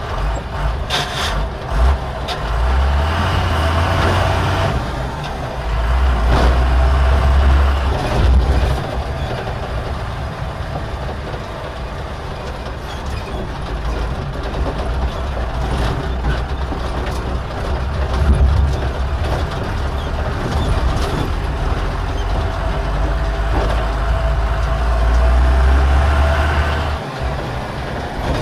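Diesel engine of a JCB backhoe loader working, its low rumble swelling several times as the engine is revved under load and easing back in between, with a few sharp knocks.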